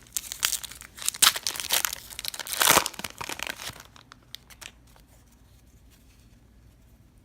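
Foil wrapper of a trading-card pack being torn open and crinkled, a dense crackling that peaks about three seconds in and stops after about four seconds, leaving only a few faint clicks.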